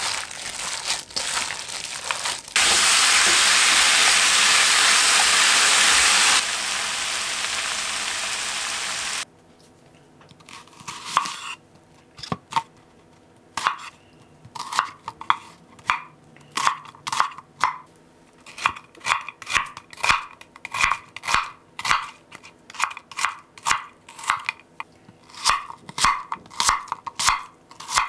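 Wet squelching of seasoned pork and onion being mixed by hand, then a loud steady sizzle for about six seconds that drops in level partway. From about nine seconds in, a chef's knife chopping onion and apple on a wooden cutting board: separate sharp knocks of the blade on the board, about one to two a second.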